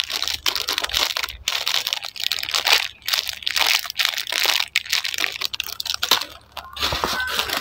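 Thin clear plastic bag crinkling and crackling irregularly as a mini squishy toy sealed inside it is squeezed and turned in the hands.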